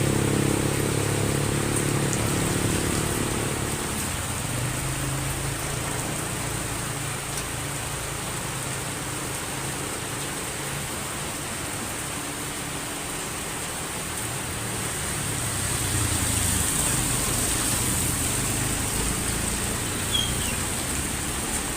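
Heavy rain falling steadily. A motor vehicle runs at the start and another passes through the rain between about 15 and 19 seconds in.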